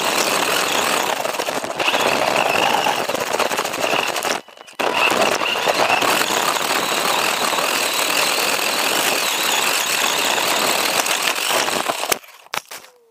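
WLToys 144001 RC buggy's electric motor and drivetrain whining at speed under loud rushing noise of tyres and wind, picked up by a camera mounted on the car. The sound breaks off for half a second about four and a half seconds in and stops abruptly near the end, followed by a couple of clicks as the car ends up on its roof.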